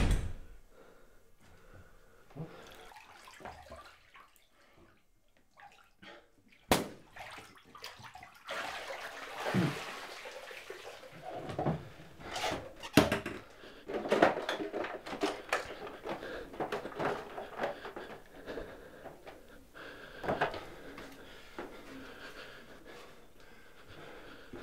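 Water sloshing and splashing in a bathtub in a small room, with scattered knocks and clicks. It starts after a near-silent stretch and a single sharp click about seven seconds in.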